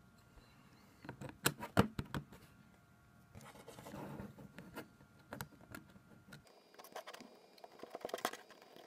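Acrylic layers of a Raspberry Pi case being handled and set in place: a quick cluster of sharp plastic clicks about a second and a half in, then scattered lighter taps and soft scraping.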